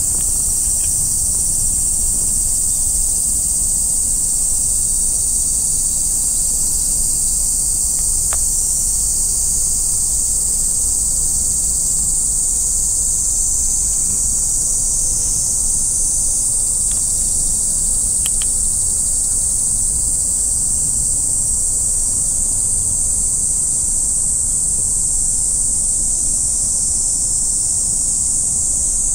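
Steady, high-pitched insect chorus that holds unchanged, over a low rumble, with a few faint ticks.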